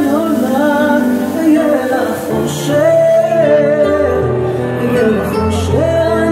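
A slow-dance song with singing over sustained bass notes.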